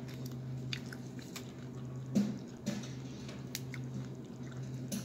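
Someone eating nachos: tortilla chips being chewed, and a plastic fork picking through chips, steak and peppers in a foam takeout box, making scattered light clicks and crackles. A steady low hum runs underneath.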